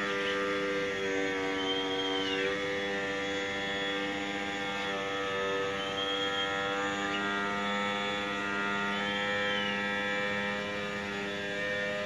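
Background music of sustained droning chords that change every few seconds, with a short rising-and-falling whistle about every three seconds.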